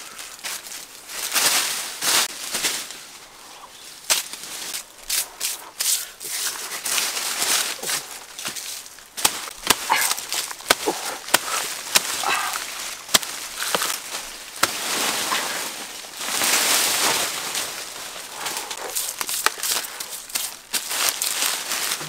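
Footsteps crunching and rustling through dry leaf litter and undergrowth, with a run of sharp machete chops into the thick stem of a giant taro plant about halfway through.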